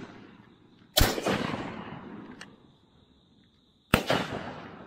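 Two shotgun shots about three seconds apart, each a sharp blast followed by a long echo that fades over a second or more.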